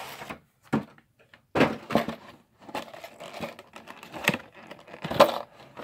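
Hands handling the collection box's clear plastic tray and booster packs: a run of plastic crackles, clicks and knocks, with a few sharper knocks about a second and a half in and again near the end.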